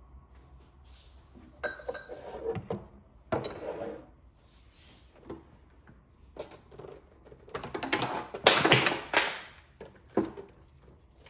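Clunks, knocks and rustling as a desktop computer monitor is handled and taken off the desk. The loudest, busiest stretch of clattering and scraping comes a little past the middle.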